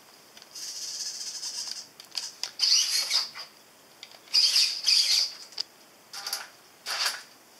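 Servo motors of a 3D-printed robot arm whining in a series of short, high-pitched bursts that rise and fall in pitch as the arm lifts a tennis ball in its claw and swings it back over the tracked base.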